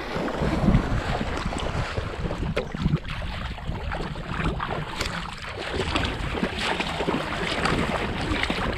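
Wind buffeting the microphone over the slosh and splash of people wading through shallow river water.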